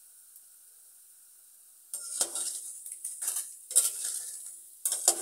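Prawn crackers frying in shallow hot oil while a utensil scrapes and knocks against the pan among the sizzling. It is faint for the first two seconds, then comes in irregular bursts of scraping.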